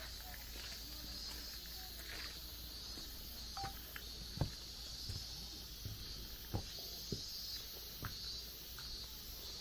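Footsteps on a hiking trail: scattered, irregular steps and knocks, the sharpest about halfway through, over a steady high background hiss.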